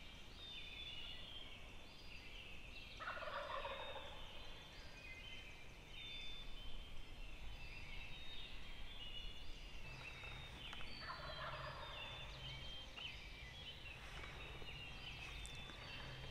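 Wild turkey gobblers gobbling from the roost at dawn, twice: once about three seconds in and again about ten seconds in. Songbirds sing throughout.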